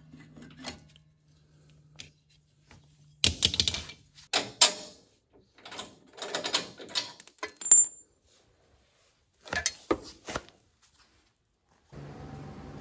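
Steel suspension parts being handled: a welded lower control arm, locking clamp and bolts being taken off a jig, clanking and rattling in several bursts, with one short metallic ping. A steady hum starts near the end.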